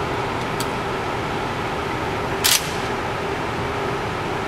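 Steady hum and hiss of an indoor shooting range's ventilation fans, with one short sharp crack about two and a half seconds in and a faint click near the start.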